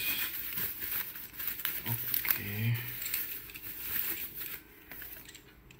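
Thin plastic packaging bag crinkling and rustling as it is handled and pulled off a metal stand. It goes quieter near the end, and a brief low voice-like hum sounds about two seconds in.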